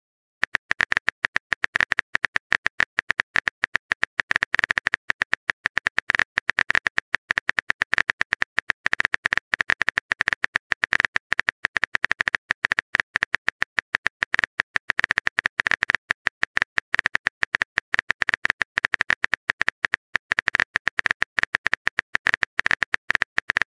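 Rapid, unbroken run of simulated phone-keyboard typing clicks from a texting-story app, one tick per letter, many ticks a second as a long message is typed out.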